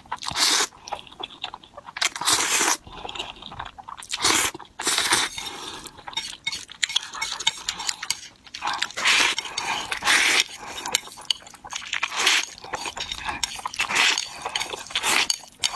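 Close-miked eating of noodles and fried eggs: chewing and biting in a string of loud, short bursts, with cutlery clinking against the dishes.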